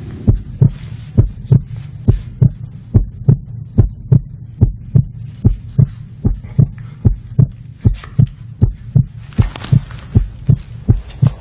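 Heartbeat thumping steadily, about three beats a second. There is a brief rustling hiss about nine seconds in.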